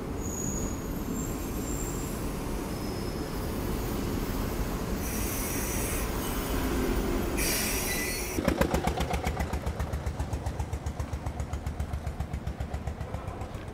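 Red passenger train rumbling into a station, with high wheel squeals off and on through the first eight seconds. It is followed by a rapid, even clatter of about eight beats a second that fades near the end.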